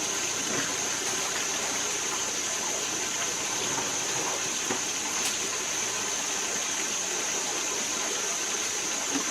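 Steady rush of flowing water, with a constant high-pitched whine over it.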